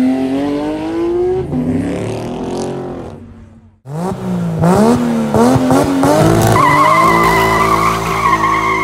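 A Porsche 911 GT3's engine revs up in a rising pull as the car accelerates away, then fades. After a cut, a Nissan GT-R's engine is revved hard up and down several times, and it breaks its rear tyres loose into a sustained tyre squeal in a smoky launch.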